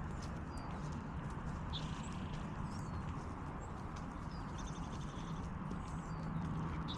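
Rhythmic footsteps of a person and dog walking on a paved path, with small birds chirping now and then over a steady outdoor hiss.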